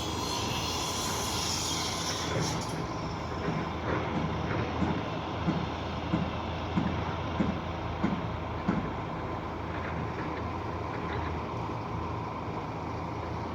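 Truck-mounted concrete pump running steadily on its diesel engine during a slab pour. A hiss in the first couple of seconds, then a run of regular knocks about two-thirds of a second apart in the middle.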